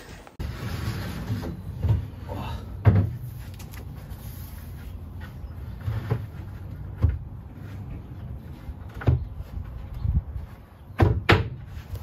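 Irregular knocks and thumps of wood being handled during work on a timber bunk bed: about eight separate hits spread over several seconds, two in quick succession near the end.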